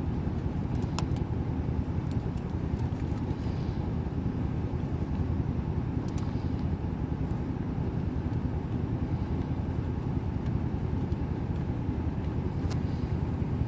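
Steady low rumble of an idling vehicle heard from inside, with a few faint clicks scattered through it.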